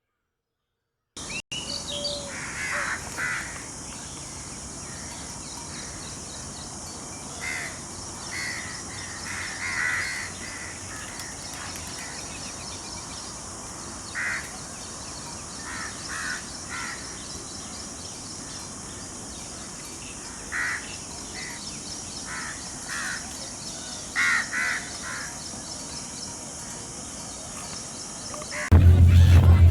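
Birds calling outdoors: short calls repeated at uneven intervals over a steady high hiss. Near the end a much louder low hum cuts in suddenly.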